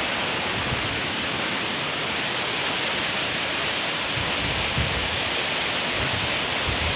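Waterfall rushing with a steady, even hiss; wind buffets the microphone in low gusts in the second half.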